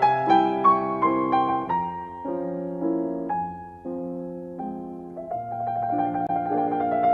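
Background piano music, notes and chords played at a slow pace.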